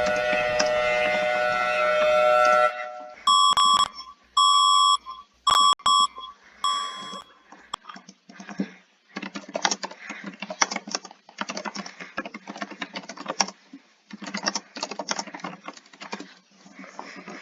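An emergency alert alarm sounding several steady pitches at once cuts off about three seconds in. Four short electronic beeps follow, then irregular bursts of noise.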